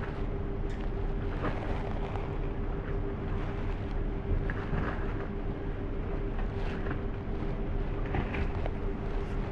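Steady drone of a ship's machinery with a constant hum, under wind buffeting the microphone.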